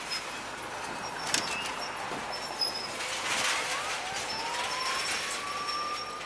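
Link-Belt hydraulic excavators demolishing a building: a steady din of machinery and crunching debris with a few sharp knocks. About four seconds in, a whine rises and then holds steady.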